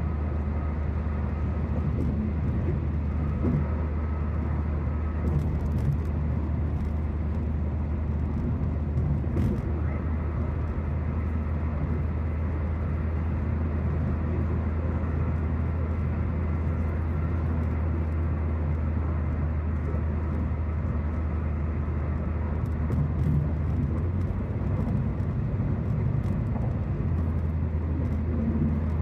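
Steady road noise inside a car's cabin at highway speed: a low drone from the engine and drivetrain under an even hiss of tyres on pavement.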